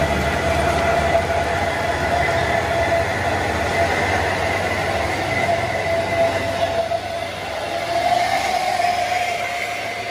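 Heavy rain hissing on a wet road, under the low drone of diesel truck engines climbing the hairpin. A steady high-pitched whine runs on top.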